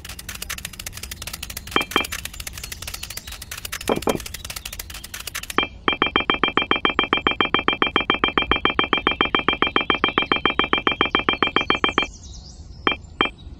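A fast buzzing rattle with a couple of knocks, then a high electronic ringing tone pulsing rapidly, about ten pulses a second, for some six seconds before it cuts off abruptly.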